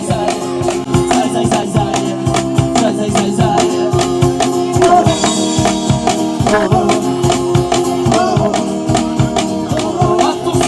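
Music with a steady beat: drums and shaker-like percussion over sustained pitched instruments.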